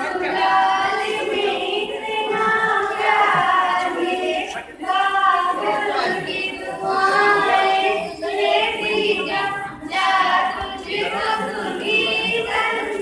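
A girl singing solo into a microphone, in phrases of a second or two with held, wavering notes and brief breaths between them.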